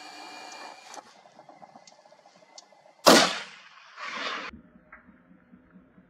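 A single hunting rifle shot about three seconds in, sharp and loud with a trailing echo, followed about a second later by a shorter burst of noise that cuts off suddenly.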